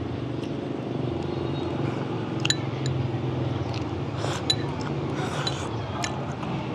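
A few sharp clinks of eating utensils against hot-pot dishes, over a steady low background hum.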